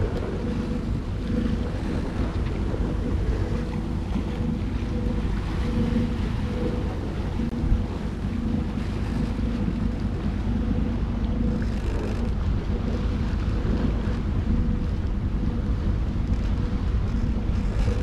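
A sailboat's inboard diesel engine running steadily while motorsailing, a low steady drone, under wind noise on the microphone and water washing past the hull.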